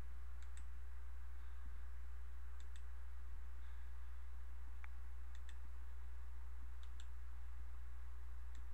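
Computer mouse button clicked several times, each click a quick double tick, over a steady low electrical hum.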